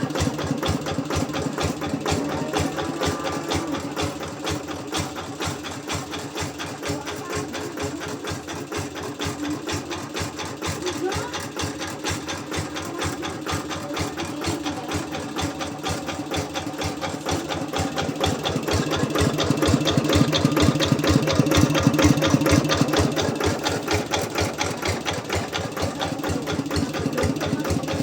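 G1000 Boxer diesel engine running steadily with a fast, even knocking beat. It gets louder for a few seconds about two-thirds of the way through, then settles back.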